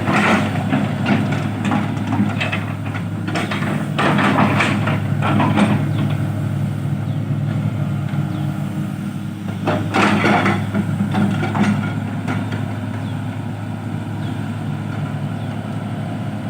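Excavator's diesel engine running steadily, with repeated bursts of clatter in the first several seconds and again about ten seconds in.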